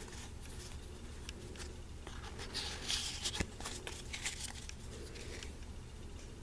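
Foil Pokémon booster pack wrapper crinkling and cards being handled, in scattered faint rustles and clicks with a louder bout of crinkling around the middle.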